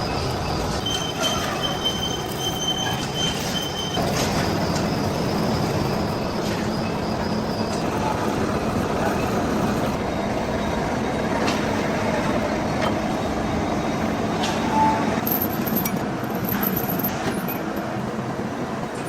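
Heavy machine-shop machinery running steadily, with high thin metal-on-metal squealing tones during the first few seconds and scattered clicks.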